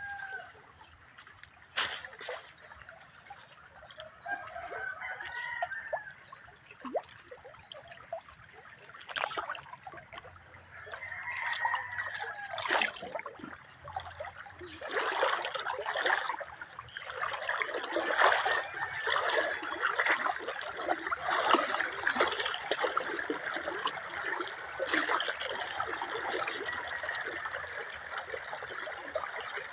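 A small river trickling and splashing over stones, growing louder about halfway through. A rooster crows a few times in the first half.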